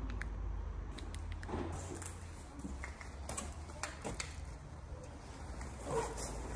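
Footsteps on interlocking plastic floor tiles: scattered light clicks and taps at an uneven pace, over a steady low hum.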